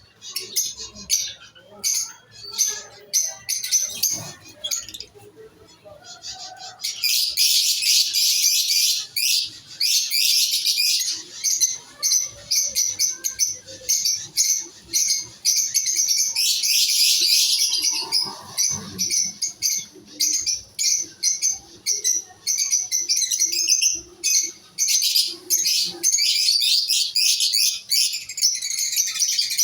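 Many small cage birds chirping and chattering together: scattered short calls at first, then from about a quarter of the way in a dense, continuous chorus of high-pitched chirps.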